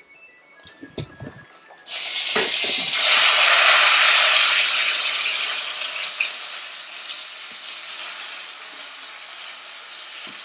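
A few light knocks and clinks, then about two seconds in pasta water hitting a hot pan of rendered guanciale and pancetta fat sets off a sudden loud sizzle that slowly dies down.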